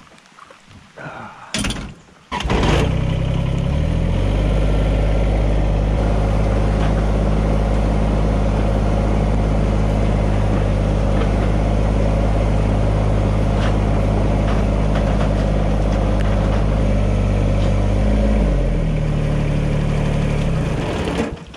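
A vehicle engine cranked and started about two seconds in, after a couple of knocks, then running steadily. It picks up to a faster speed a couple of seconds later, holds there, drops back to idle near the end and is switched off.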